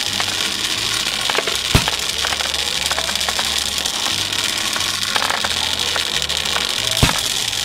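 Cartoon sound effect of a mass of small balls pouring and clattering into a heap: a continuous dense rattling crackle with scattered clicks and two louder knocks, about two seconds in and near the end. Low background music runs underneath.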